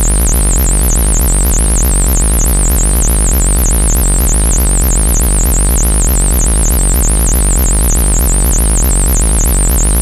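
Synthesized alien buzzer sound effect: a loud, steady low electronic buzz under a high whistling tone that warbles rapidly up and down, several times a second, without a break.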